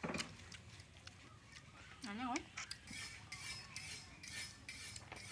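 Metal fork clinking and scraping in a steel wok of stir-fried vegetables, with a sharp clink at the start and many light clicks from about three seconds in. A short wavering call sounds about two seconds in.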